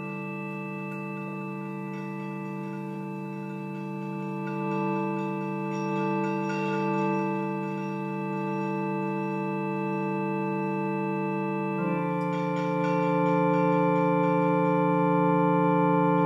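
Electronic keyboard holding a sustained organ-tone chord as a drone. About twelve seconds in it shifts to a different chord and grows louder.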